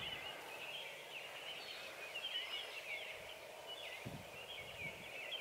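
Wild birds chirping and warbling faintly and continuously over quiet outdoor background noise.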